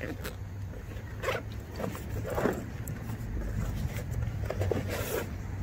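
Zipper on a nylon backpack being pulled open in a few short runs, with the pack's fabric rustling, over a low steady hum.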